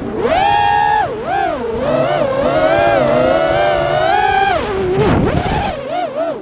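FPV racing quadcopter's brushless motors and propellers whining as heard from its onboard camera. The pitch rises and falls with the throttle through the turns. It dips sharply about five seconds in before climbing again.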